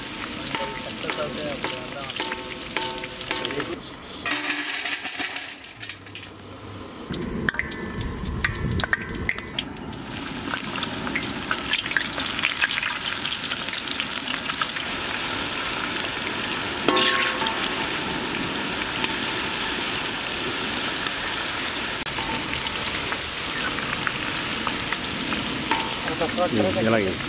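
Flour-coated sweet corn kernels deep-frying in hot oil in a large wok, a steady sizzle that grows louder about ten seconds in. A metal skimmer stirs and lifts the kernels, scraping and clinking against the pan.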